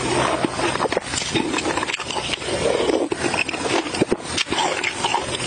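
Close-miked eating sounds: soup slurped from a spoon, then wet chewing and lip-smacking, with many small clicks in an irregular rhythm.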